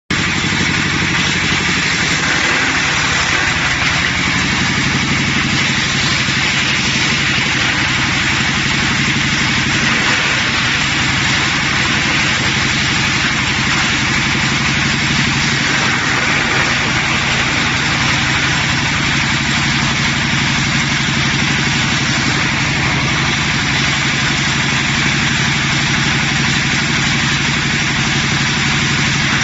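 MFJ-series wood crusher running steadily: an even machine hum with a broad rushing noise over it, holding level without a break.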